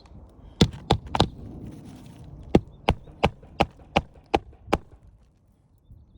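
Hand hammer blows on an asphalt shingle roof: three strikes, then a steady run of seven at about three a second.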